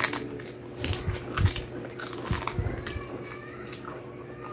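Biting and chewing on a deep-fried pork knuckle (crispy pata), teeth gnawing the meat and skin off the bone, with irregular crunchy clicks and a few heavier bites.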